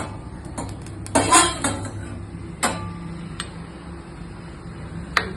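A metal spoon clinking and scraping against a kadai as fried green chillies and garlic are scooped out into a bowl, with a few sharp clinks about a second in and another near the end.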